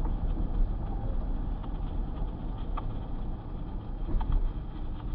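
Steady low rumble of a car's engine and road noise heard from inside the moving car.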